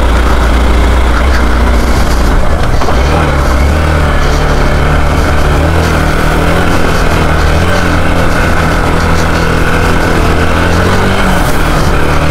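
Hero XPulse 200 motorcycle's single-cylinder engine running steadily under light throttle, stepping up in pitch about three seconds in and holding there.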